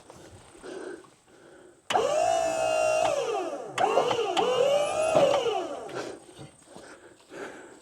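Sawmill hydraulic pump whining for about four seconds, its pitch dipping and recovering several times as it comes under load, while the hydraulic clamp is worked to help roll the log.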